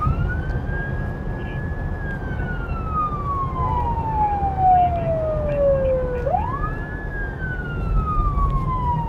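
Police car siren in a slow wail: the pitch sweeps quickly up, holds briefly, then falls slowly, going round twice, over the low rumble of the moving car.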